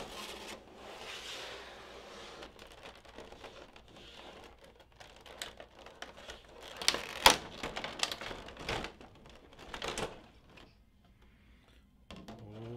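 Stiff plastic blister tray and clear plastic packaging handled and slid out of a cardboard box: crinkling plastic with irregular clicks and knocks, the sharpest about seven seconds in.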